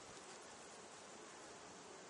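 Faint, steady buzzing of a swarm of honeybees flying around their hive, barely above the background hiss.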